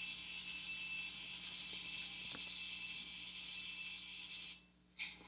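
A SoundTraxx Tsunami 2 sound decoder playing a held, multi-note locomotive horn through the model's small unsealed speaker. The sound is thin and high-pitched, and it cuts off suddenly about four and a half seconds in.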